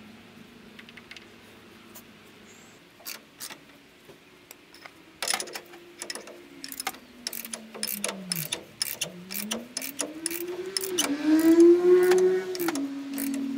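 Ratchet clicking in irregular runs while it turns the screw of a ball joint press, pressing a new upper ball joint into a Dodge Ram 3500's front steering knuckle. Under the clicks a pitched drone slides down, then climbs back up and is loudest near the end.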